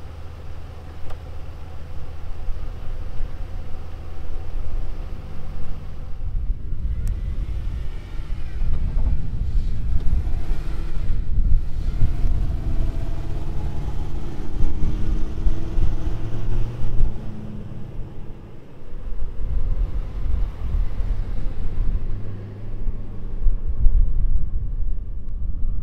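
Two pickup trucks' engines, a Ford Super Duty and a Toyota Tundra, running under load as the Ford pulls the Tundra out of deep sand on a tow strap. The low rumble swells, and the engine pitch rises and falls through the middle stretch.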